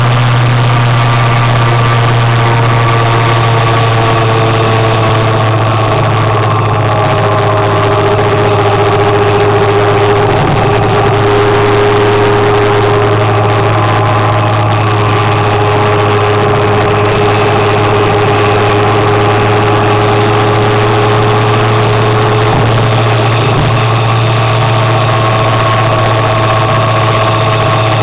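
Motor scooter engine running steadily at cruising speed, heard from on board: a constant, loud drone whose pitch drifts slightly up and down.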